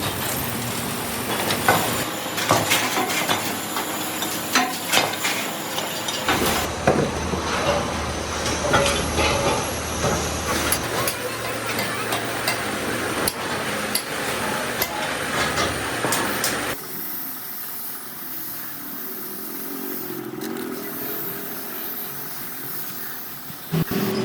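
Metalworking workshop noise: many sharp metal knocks and clanks over a steady machine hiss. The sound changes abruptly twice, and the last part is quieter and duller.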